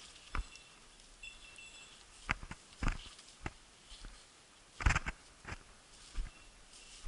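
Footsteps pushing through dry brush: irregular crunching, rustling and twig snaps, the loudest about five seconds in, with faint high ringing tones in the first two seconds.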